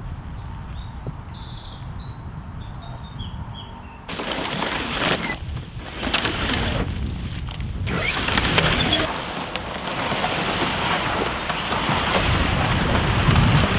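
Wind buffeting the microphone, with small birds chirping during the first few seconds. About four seconds in, a louder, rougher rush of wind noise takes over.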